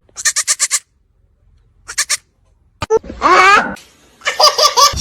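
Bleating animal calls: a quick stuttering series, a short burst about two seconds in, a longer wavering call about three seconds in, and another stuttering series near the end.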